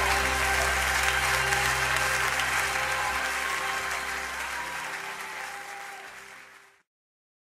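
Audience applause over the last held chord of a worship song. Both fade out and stop in complete silence near the end.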